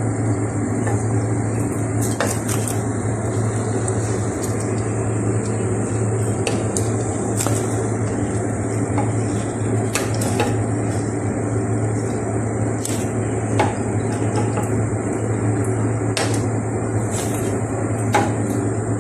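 A metal utensil clinks sharply against a frying pan and plate again and again, irregularly, as fried pastries are lifted out of hot oil. A steady hiss and hum runs underneath.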